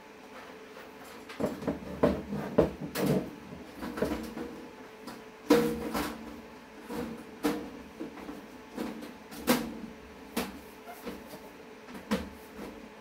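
Sheet-metal side panel of a PC tower case being handled and fitted back onto the case: a series of irregular clacks, knocks and scrapes, the loudest about five and a half seconds in.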